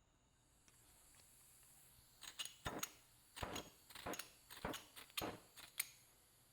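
A series of about ten light, irregular metallic clicks and clinks over a few seconds, typical of metal tools being handled on a workbench, after a couple of seconds of near silence.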